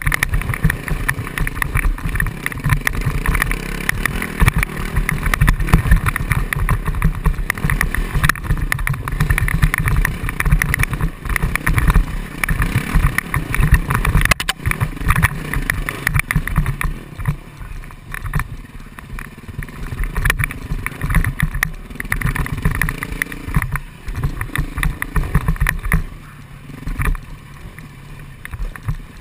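Enduro dirt bike engine running at varying throttle on a rough trail, heard through an action camera's microphone with rumbling wind noise and knocks from the bumpy ride. It gets quieter about halfway through.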